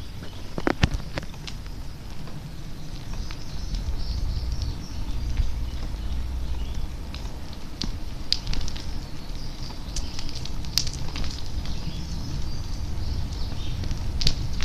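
Wind rumbling on the microphone and handling noise while moving along a paved trail, with scattered sharp clicks and knocks, the loudest about a second in.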